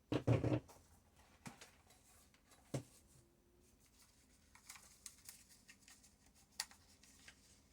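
A UV curing lamp being got out and set down on a worktable: a heavy clunk just after the start, a sharp knock about three seconds in, then light clicks, taps and rustling as things are moved about.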